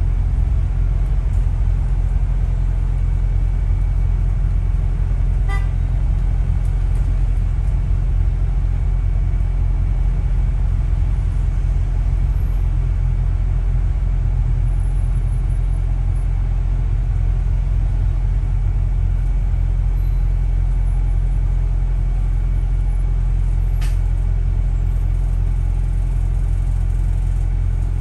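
Double-decker bus running through traffic, heard from inside: a steady low rumble of engine and road noise that holds level throughout.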